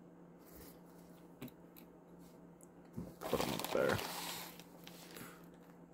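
Faint clicks of small plastic minifigure parts being handled, then about three seconds in a couple of seconds of a small plastic bag crinkling.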